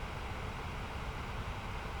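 Bladeless fan heater running, a steady rush of air with a low rumble beneath it.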